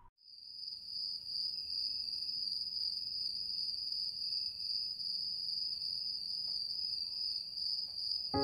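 Crickets chirping in a steady, unbroken high-pitched trill, fading in just after the start: a night-time ambience.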